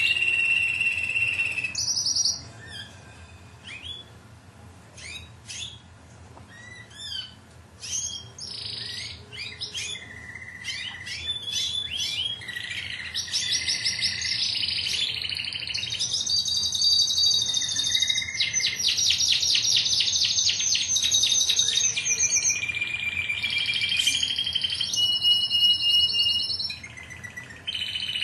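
Domestic canary singing: a long song of whistled trills and rolls, softer with short separate chirps for the first several seconds, then loud sustained trills including a fast run of rapidly repeated notes in the middle.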